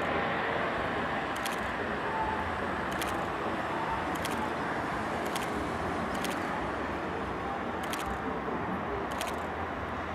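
Eurocopter EC135 twin-turbine helicopter flying away overhead, its rotor and turbine noise a steady rush that slowly fades as it departs. Faint high ticks come about once a second.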